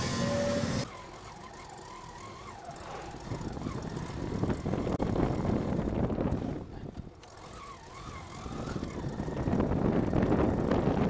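Road traffic noise that swells and fades, dropping suddenly just under a second in, with a faint wavering tone twice.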